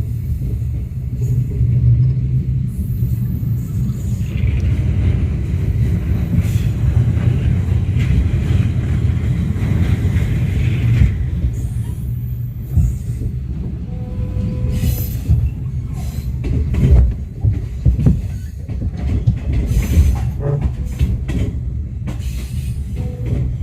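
Passenger coach of a diesel-hauled train running on the rails: a steady low rumble, with a higher-pitched noise lying over it for several seconds in the first half. In the second half come irregular knocks and clunks from the coach and track.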